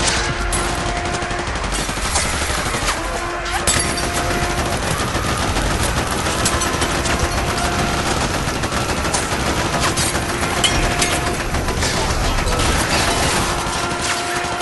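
Dense, continuous gunfire: machine guns and rifles firing over one another in a war sound-effect mix. A short steady tone sounds for about a second every few seconds beneath the shooting.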